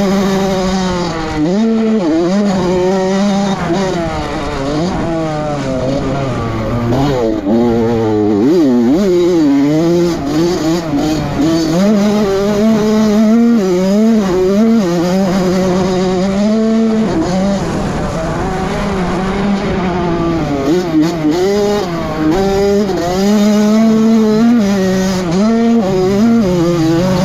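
Honda CR85 two-stroke motocross bike engine, heard from on the bike, revving hard and falling back again and again as the rider throttles up, shifts and rolls off around the track.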